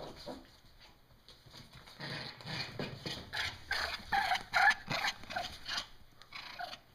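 Morkie puppies' claws clicking and scrabbling on a hardwood floor as they run back with a rubber toy, turning into a quick string of short scuffling sounds from about two seconds in as they tussle over it near the camera.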